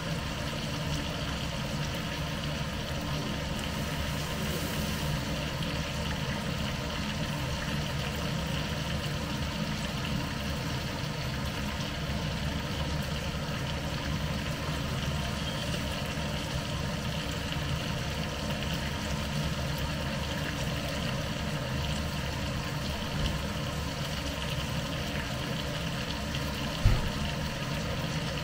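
Steady sizzle of steak frying in butter in a pan over a gas burner, with a steady low hum under it. There is a single sharp knock near the end.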